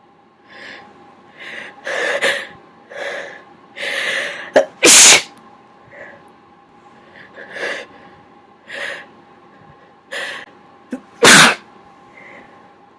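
A person building up to a sneeze they try to hold back: a run of hitching, gasping in-breaths ends in a loud sneeze about five seconds in. Then another run of catching breaths leads to a second loud sneeze near the end.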